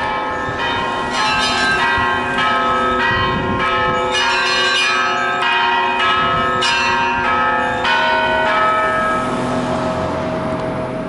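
Church bells ringing: several bells of different pitches struck in a repeating pattern. After about eight seconds the striking stops and the bells ring on, fading away.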